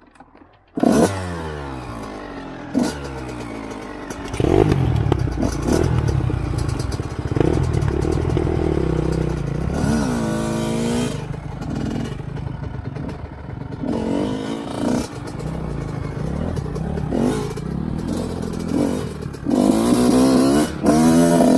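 Dirt bike engine firing up about a second in, then running with its revs rising and falling several times under throttle blips as the bikes pull away.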